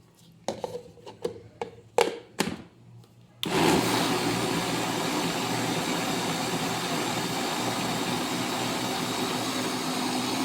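A few knocks and clicks, then about three seconds in a countertop blender switches on and runs steadily, blending corn cake batter.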